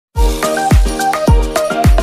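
Background music with a steady beat, starting just after a brief silence: deep kick drums about twice a second under a repeating bright melody.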